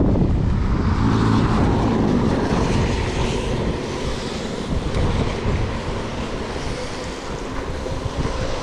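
Wind rumbling and buffeting the microphone of a camera on a moving bicycle, over a steady hiss from the wet road. It is a little louder for the first three seconds or so.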